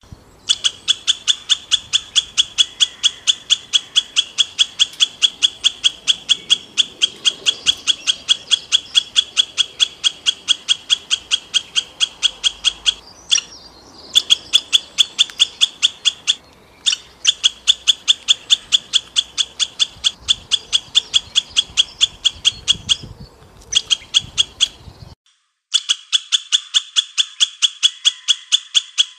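A high, sharp chirp repeated very evenly, about four times a second, stopping briefly a few times.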